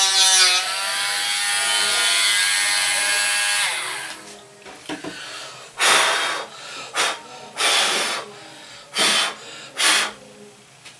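Dremel Stylus cordless rotary tool with a sanding wheel running with a high whine, its pitch dipping briefly as the wheel bears on the model's putty-filled wooden wall, then switched off about four seconds in. After it, about six short puffs of breath about a second apart blow the sanding dust away.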